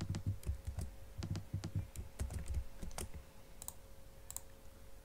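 Typing on a computer keyboard: a quick run of keystrokes for about three seconds, then a few lighter, spaced-out clicks.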